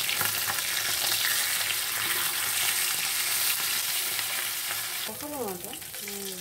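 Pieces of salted featherback fish frying in hot mustard oil in a pan: a steady sizzle, easing a little about five seconds in.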